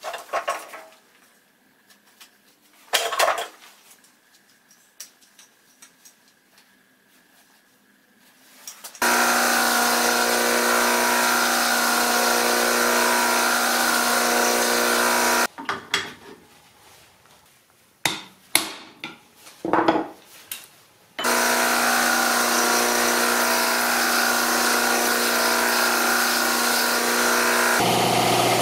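Upright belt grinder running with a steady hum as a small metal part is ground on its belt. It starts about nine seconds in, stops after about fifteen seconds and runs again from about twenty-one seconds. Before and between the runs there are sharp clinks and knocks of metal parts being handled.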